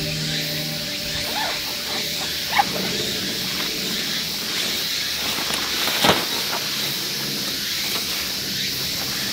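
A folded pop-up mesh tent being handled on a foam mat, a small click, then one sudden snap about six seconds in as it springs open. A steady high hiss lies underneath.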